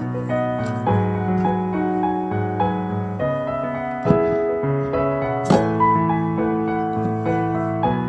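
Background solo piano music: slow held notes and chords.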